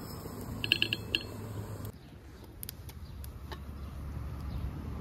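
A few quick ringing clinks of kitchenware, then scattered faint clicks and taps.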